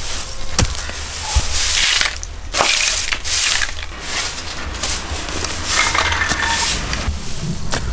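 A broom sweeping a tiled path in long, rough, scratchy strokes, over a low steady hum.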